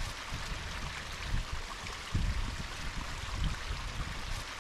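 Small waterfall splashing down over rocks into a woodland stream: a steady rush of water with an uneven low rumble underneath.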